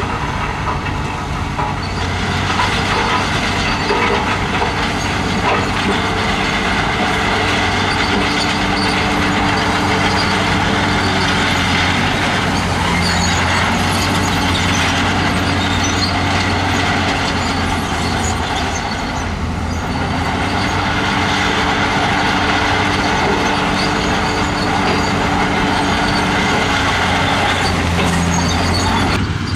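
Heavy diesel engine of earthmoving equipment running hard, its pitch shifting down and back up a couple of times, with dense mechanical noise over it.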